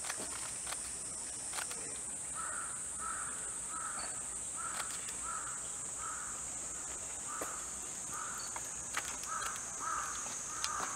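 A crow cawing over and over, a short call about every half second or so, starting about two seconds in, over a steady high-pitched insect buzz.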